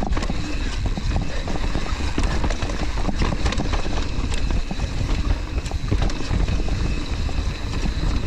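Mountain bike descending a rough, rocky trail, heard through an action camera's microphone: wind buffeting the mic with a steady low rumble, while the bike rattles and knocks over rocks and roots in quick irregular clatters.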